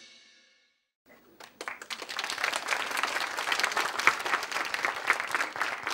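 An audience applauding. The clapping starts about a second in, after a moment of silence.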